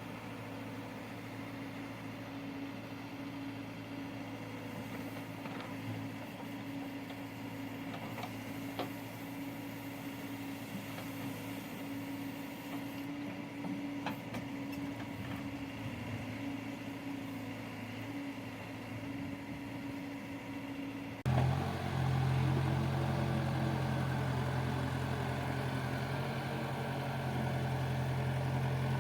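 Heavy diesel engines of earth-moving machinery running steadily. About three-quarters of the way in, the sound changes abruptly to a louder, deeper steady drone.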